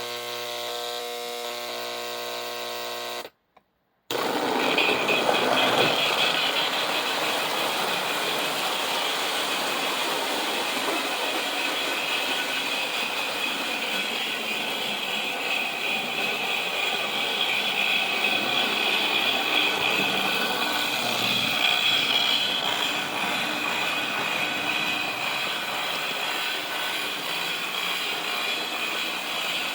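Lionel 8603 C&O Hudson O-gauge toy steam locomotive running on track with its electronic "Mighty Sound of Steam" chuffing, over a steady clatter of wheels and motor. It is preceded by a steady electrical hum that cuts out briefly about three seconds in.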